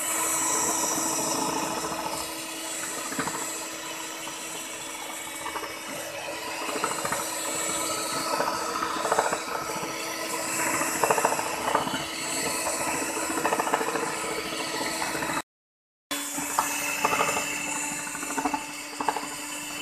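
Electric hand mixer running, its twin wire beaters whipping cream in a plastic bowl: a steady motor hum with the beaters rattling against the bowl. It cuts out briefly about three-quarters of the way through, then runs on. The cream is being beaten until it doubles in volume and turns fluffy.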